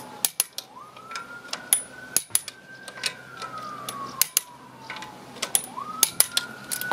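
Torque wrench ratcheting in quick irregular metallic clicks as a car's wheel nuts are tightened to 110 Nm. An emergency-vehicle siren wails in the background, rising quickly and then falling slowly, twice.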